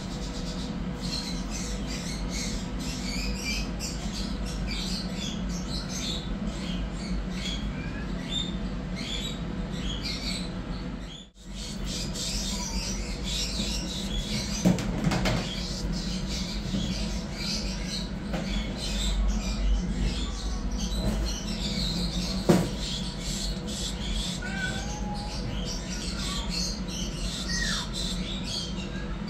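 Kittens squeaking and mewing in many short, thin, high cries, with a few longer gliding mews, over a steady low hum; the sound drops out briefly about a third of the way through, and there are a couple of sharp knocks.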